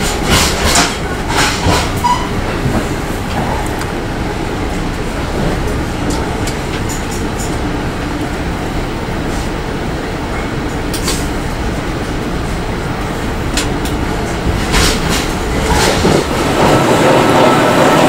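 Inside a moving NJ Transit commuter train: a steady rumble of the ride, with a few clicks of the wheels over rail joints. Near the end the noise grows louder, with a faint steady hum.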